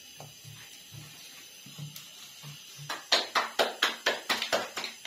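Roti dough being shaped by hand: a few soft dull thuds as the dough ball is pressed into flour on the board, then from about three seconds in a quick run of sharp slaps, about five a second, as the roti is patted flat between the palms.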